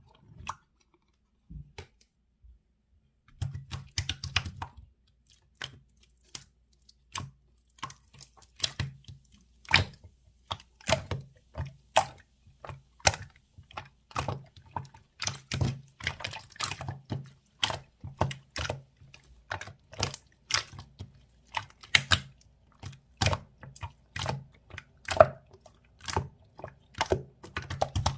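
Slime being handled and pressed, making a run of sharp, irregular clicks and pops, several a second, starting about three seconds in.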